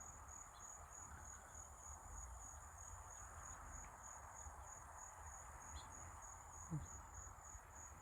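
A faint, steady chorus of insects trilling in a continuous high-pitched, finely pulsing drone. A brief low sound comes about seven seconds in.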